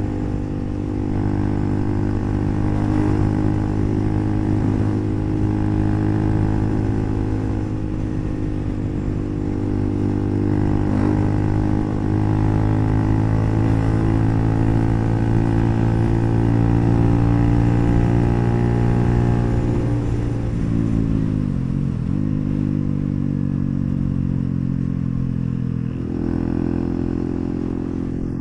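Bajaj Pulsar NS400Z single-cylinder engine running through an HP Corse aftermarket exhaust at a steady pitch. About twenty seconds in, the pitch falls and settles lower, then picks up again near the end.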